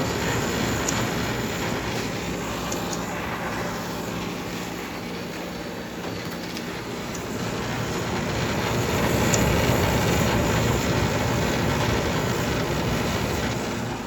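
Vintage dehumidifier running: fan air rush with a steady hum, getting louder for a few seconds past the middle.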